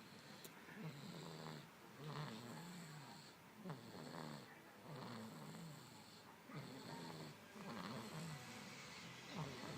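Steady snoring, one snore about every second in an even rhythm.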